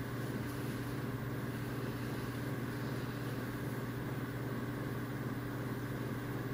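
Room tone: a steady low hum under an even hiss, unchanging throughout.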